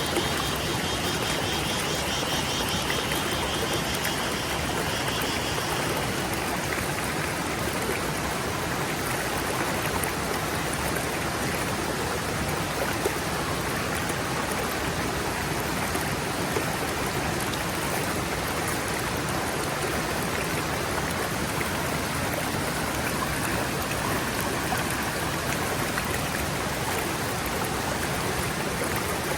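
Forest stream running and splashing steadily. A high, rapidly pulsing buzz sits over it and stops about six seconds in.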